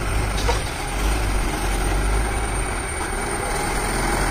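Diesel engine of a Tata SE1613 tipper truck laden with crushed stone, running with a steady low rumble as the truck manoeuvres slowly.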